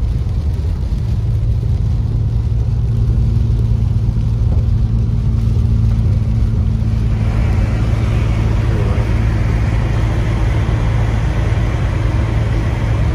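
A car driving on a rain-soaked road, heard from inside the cabin: a steady low engine hum under tyre hiss from the wet pavement. The hiss grows louder about seven seconds in.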